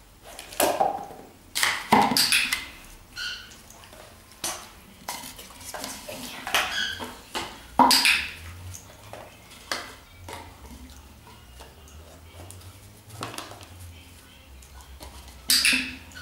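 Dog bowls knocking and clinking together as a dog noses a small tub against a larger bowl: a string of separate sharp knocks and clinks, some ringing briefly, with the loudest around two seconds in, about eight seconds in and near the end.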